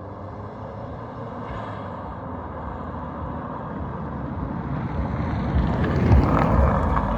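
Turbocharged Nissan SR20DET four-cylinder in a Volga driving and pulling, its sound growing steadily louder to a peak about six seconds in. It runs on a rough tune that is not set up above half throttle.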